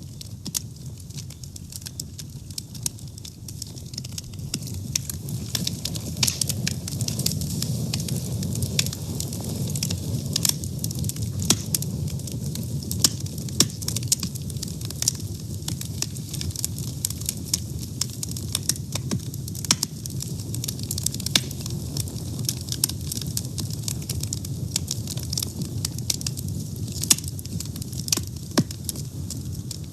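Fire burning: a steady low rush of flames with frequent, irregular sharp crackles and pops.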